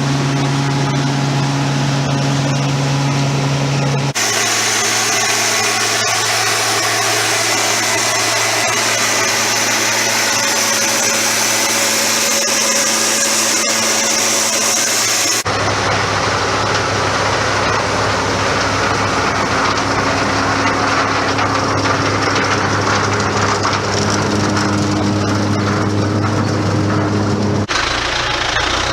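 Engines of pecan-harvesting machinery running steadily, in several clips joined by abrupt cuts: about four seconds in, about fifteen seconds in, and again near the end, each change bringing a different engine hum.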